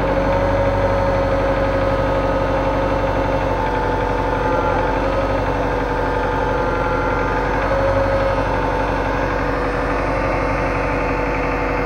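Tractor diesel engine running steadily at a constant speed while its hydraulics raise the tipping trolley's bed.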